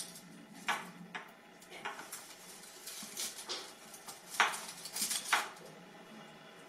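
Fir sprigs rustling and scraping against the wooden rods of a woven wreath frame as they are pushed in between them, in a series of short scrapes, the loudest about four and a half to five seconds in.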